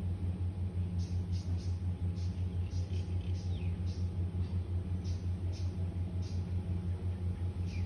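An engine idling: a steady low throb that pulses quickly and evenly. Short high bird chirps, some falling in pitch, come and go over it.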